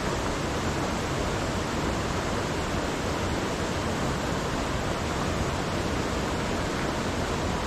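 Small mountain trout creek rushing steadily over rocks: a constant, even water noise.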